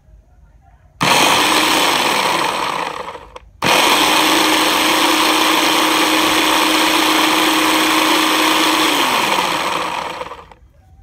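Electric blender running in two bursts: a short run of about two seconds that winds down, then, after a brief pause, a longer run of about six seconds. Each time the motor's pitch holds steady, then slides down as it coasts to a stop. It is blending spinach, coconut milk and chia seeds into a smoothie.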